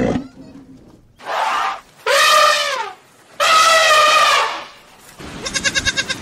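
African elephants trumpeting: after a short breathy rush, two loud high trumpet calls, the second longer and wavering. A goat's quavering bleat follows near the end.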